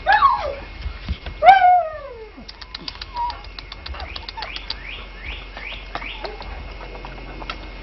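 Alaskan Malamute puppy giving two falling, whining yelps, the second louder, about a second and a half apart.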